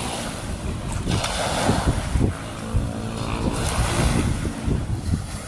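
Wind buffeting the microphone, a low uneven rumble with gusty thumps, over the wash of sea water.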